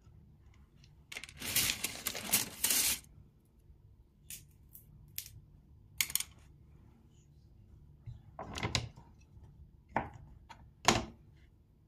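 Hands handling sausages and wooden skewers on a plastic cutting board: a scraping rustle about a second in, then scattered clicks and taps and a few short knocks near the end.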